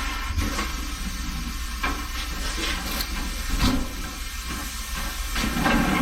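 A steady machine hum with hiss, broken by several short knocks and clanks.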